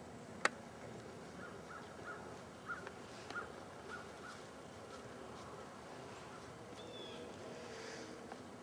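Quiet outdoor background with a sharp click about half a second in, then a run of short, evenly repeated high calls, about two a second, that die away after a few seconds, and a brief high chirp near the end.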